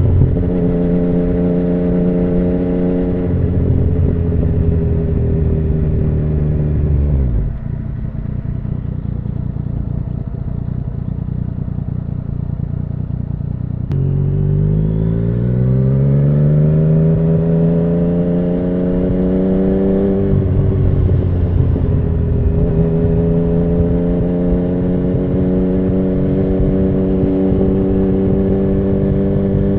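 2017 Yamaha MT-09's 847 cc crossplane inline-three running through an Akrapovic Racing Line carbon full exhaust. It holds a steady cruising note, the revs drop sharply about seven seconds in and stay low, then about halfway through the revs climb steadily for several seconds, break at a gear change, and settle into a steady note again.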